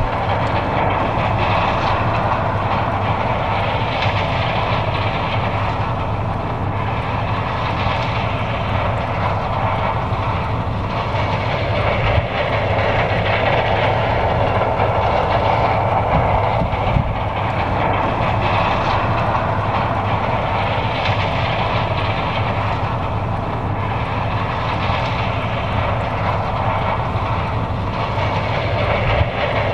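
John Deere 9550 combine harvesting corn: its engine drones steadily under the dense clatter of the header and threshing machinery, swelling and easing every few seconds.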